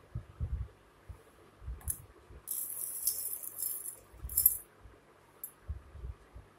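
Stainless steel bowls clinking and rattling against each other and the stone floor as one is set down, with a few dull thumps; the loudest clink comes about four and a half seconds in.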